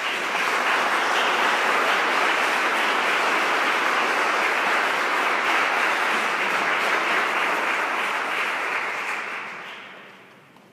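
Audience applauding in a large, echoing stone cathedral after an organ piece, steady at first, then dying away about nine seconds in.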